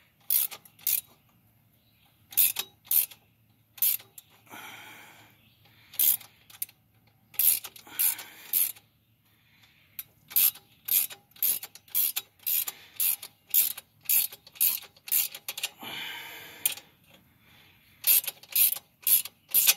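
Ratchet wrench clicking in short strokes, often about two a second, as a bolt on the turbo's hot-side exhaust piping is tightened down.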